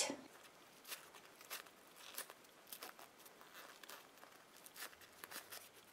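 Faint, scattered soft rustles and small ticks of a foam squishy toy sandwich being handled and turned over in the hands.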